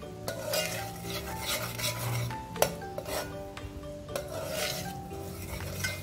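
A steel ladle scraping and stirring around the bottom of an aluminium pot of onion and garlic-ginger paste frying in oil, in repeated rasping strokes. There is a sharp clink of metal on metal about two and a half seconds in.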